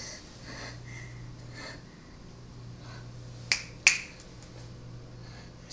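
Two sharp clicks about a third of a second apart, over a low steady hum.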